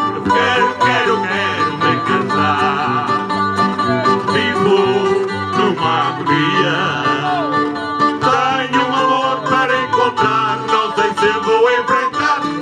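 Music with plucked-string accompaniment and a singing voice.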